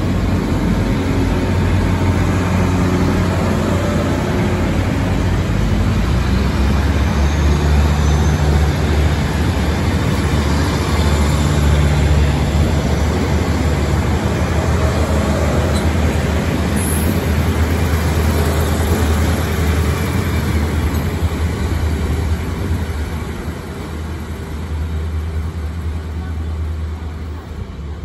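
Taiwan Railway DR2800-series diesel multiple unit pulling out, its diesel engines running with a steady low drone under the noise of the passing cars. The sound fades away in the last few seconds as the train moves off.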